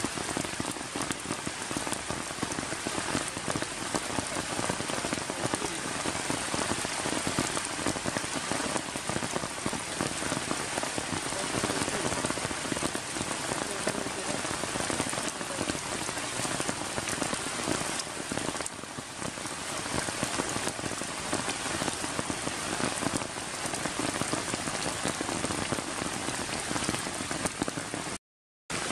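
Steady rain falling on wet grass and puddles, an even continuous patter. It cuts out completely for about half a second near the end.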